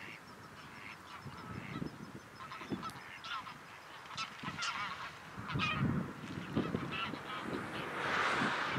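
A flock of greylag geese honking and calling in short, repeated notes, with low bumps underneath and a rush of noise building near the end.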